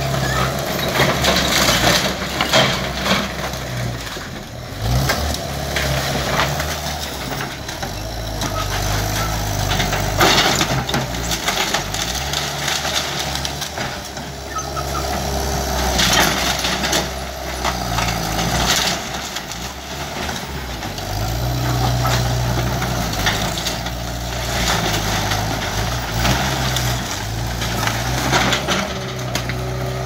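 Skid steer engine running under changing load, its pitch rising and falling, with scattered cracks and crunches of wood and debris being broken during a house demolition.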